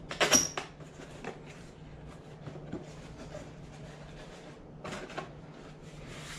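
Cardboard camcorder box being opened by hand: a short loud rasp about half a second in, then light scuffs and taps of the cardboard, and a brief cluster of rustles about five seconds in as the lid flap is worked open.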